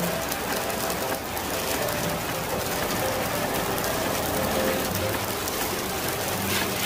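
Turon, banana spring rolls in lumpia wrappers, deep-frying in hot oil in a frying pan: a steady, dense crackling sizzle.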